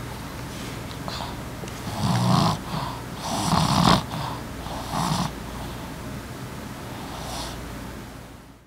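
Boston terrier snoring in its sleep: three loud snores in the middle, then a fainter one near the end.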